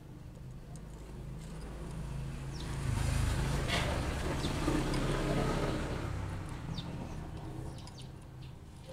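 A motor vehicle's engine rumble swelling as it passes by and then fading away over several seconds.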